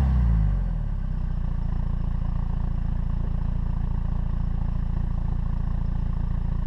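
MG ZR 2.0 four-cylinder turbodiesel heard at the tailpipe through a decat pipe and Scorpion exhaust, its revs falling back from a blip in the first second, then idling steadily.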